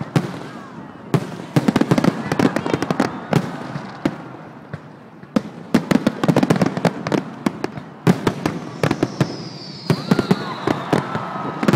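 Aerial fireworks crackling: dense runs of rapid pops in three waves, with quieter gaps between them. A faint high tone glides slowly down in pitch near the end.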